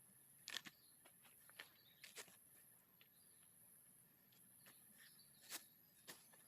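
Near silence, faint outdoor background broken by a few short, light clicks.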